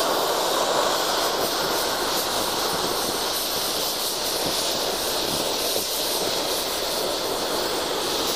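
Oxy-propane cutting torch hissing steadily as it cuts through steel plate.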